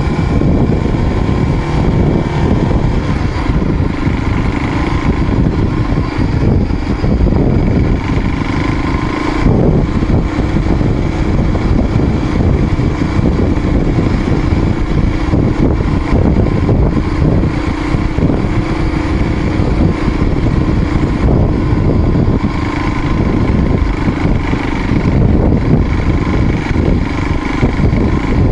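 Motorcycle engine running steadily under way, its pitch holding level, with a brief break in the note about nine and a half seconds in.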